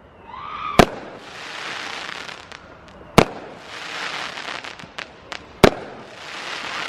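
Fireworks going off: three sharp bangs about two and a half seconds apart, each followed by about a second of crackling, with a few smaller pops between.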